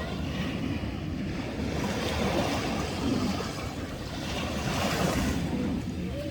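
Sea surf: waves washing in, the noise swelling twice, with some wind on the microphone.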